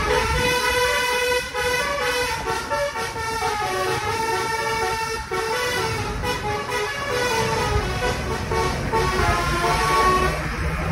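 A tour bus's basuri, a set of musical air horns, playing a quick tune of changing notes, over low engine and road rumble; the horn notes die away near the end.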